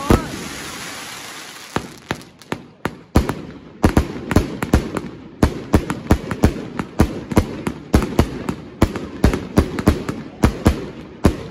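Triplex XB4100 'Air Force One' firework cake firing. One bang is followed by about two seconds of fading hiss, then a rapid string of sharp bangs, about three a second, as the shots go off.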